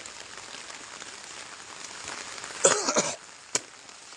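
Steady rain falling on a wet road and surrounding vegetation. About two and a half seconds in comes a brief loud vocal noise, followed by a single sharp click.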